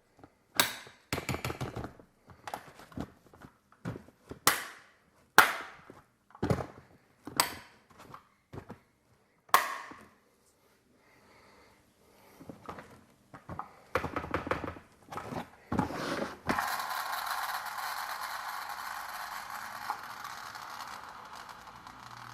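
Sharp clicks and knocks of a 1/24-scale diecast model car being handled, about a dozen separate hard snaps in the first ten seconds. From about 16 seconds a steady scraping hiss takes over and slowly fades.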